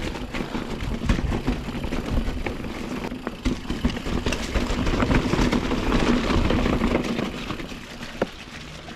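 Mountain bike riding fast along a dirt trail: tyres rolling and the bike rattling over the ground, with many small knocks and a steady low buzz. It grows loudest past the middle and eases off near the end.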